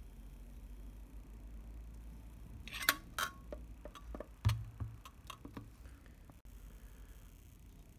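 Small metallic clicks from handling a Rolleiflex Standard twin-lens camera: a quick cluster about three seconds in, then a louder knock with a dull thud as the camera is set down on the mat, followed by a few fainter clicks.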